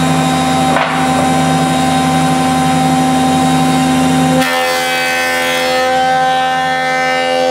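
Jointer running with a steady machine hum. About halfway through, the sound changes to a high whine with many overtones as the cutterhead starts cutting a rough board pushed across it, flattening its face.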